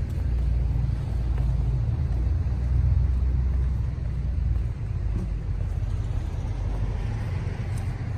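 Low, steady rumble of an engine running at idle, strongest in the deep bass and unchanging.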